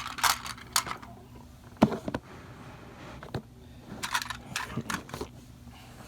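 Small plastic toy train wagons being handled and set down on a surface: scattered sharp clicks and light clatter, with brief rustling in between.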